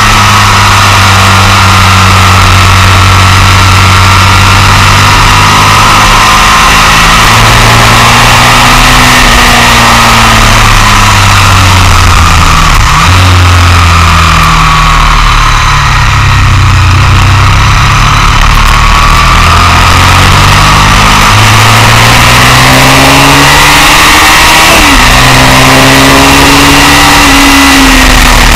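Sport motorcycle engine at speed on track, loud over heavy wind and road rush. The revs climb and fall, with abrupt pitch steps about halfway through and again near the end as gears change.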